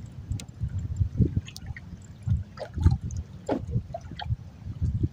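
Water slapping and gurgling against the hull of a small fishing boat in irregular low splashes, with a few faint clicks.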